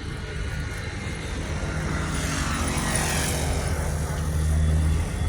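Diesel locomotive engine running with a steady low drone that grows louder over the first few seconds, with a rushing hiss that swells and fades around the middle.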